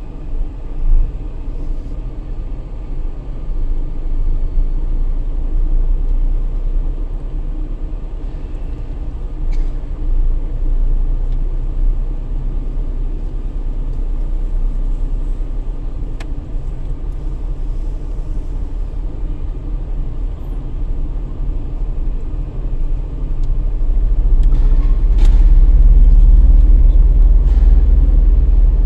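Car driving slowly, heard from inside the cabin: a steady low engine and tyre rumble with a few faint clicks. The rumble grows louder about 24 seconds in, as the car heads up the exit ramp.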